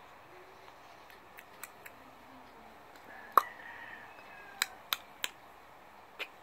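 A run of short, sharp clicks at uneven spacing in a quiet room. The loudest comes about three and a half seconds in, and there are several more in the last two seconds. A faint baby's coo comes near the start.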